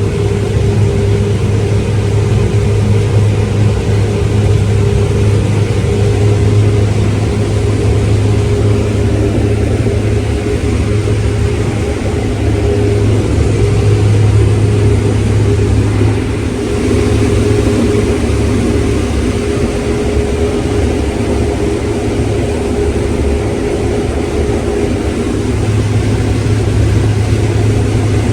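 Engine of heavy harvest machinery running steadily, a constant low drone with a slight dip in level about two-thirds of the way through.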